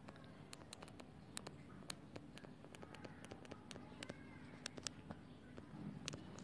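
Faint, irregular clicks and taps of a stylus on a tablet screen during handwriting, over quiet room tone.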